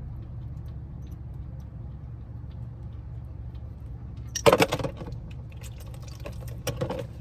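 Metal tools and parts clinking and clattering: a loud burst about four and a half seconds in and a few more clinks near the end, over a steady low hum.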